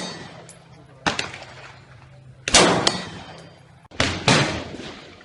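AR-15 rifle firing single shots: one about a second in, then two quick pairs a fraction of a second apart, each shot with a sharp crack and a fading echo.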